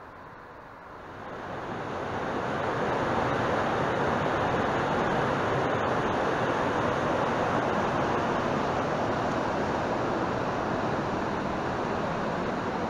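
Fast mountain stream rushing over boulders in a steady whitewater roar. It swells up over the first couple of seconds, then holds evenly.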